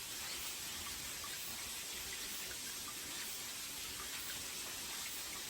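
Water running steadily from the spout of a Shinto shrine's temizuya (purification water basin) and splashing into the basin, an even trickling with small scattered drips.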